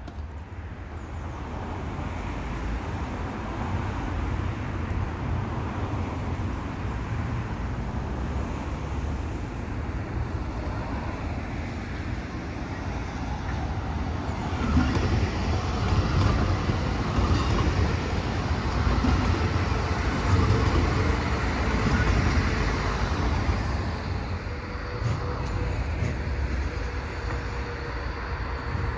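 A steady low rumble of vehicle noise that gets louder about halfway through.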